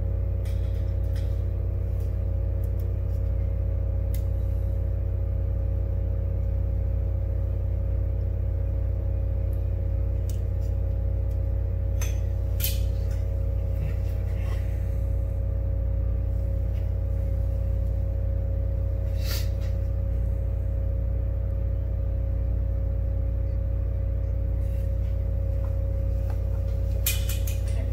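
Steady low electrical hum from soldering-bench equipment, an unchanging stack of tones, with a few faint clicks and taps.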